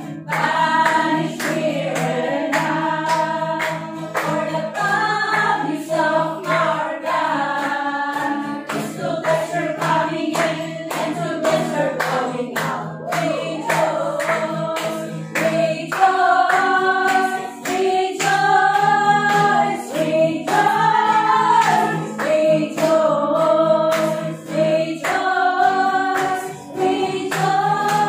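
Worship music: a group of voices singing a praise song over a steady beat and sustained low accompaniment.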